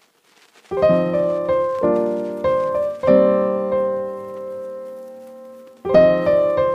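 Background music of piano chords, starting a little under a second in. A long chord is held and fades away, and the playing picks up again near the end.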